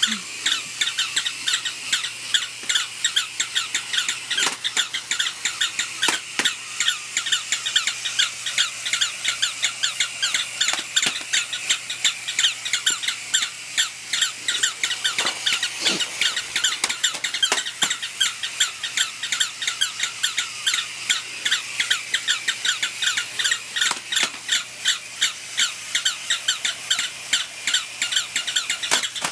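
Several electronic flipping toy dogs yapping at once: a fast, unbroken run of short, high-pitched electronic yips with a few sharper clicks among them.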